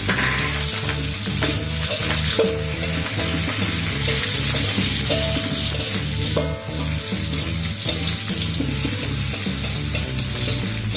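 Sliced shallots, garlic, green chilies and bruised lemongrass sizzling in hot oil as they are stir-fried in a pan, with stirring throughout. Background music with a repeating bass line plays underneath.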